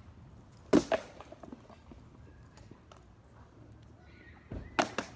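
Rattan sword blows striking shields and armour during SCA armoured sparring. Two sharp cracks come about three-quarters of a second in, then a few lighter knocks, and a dull thud followed by two more cracks near the end.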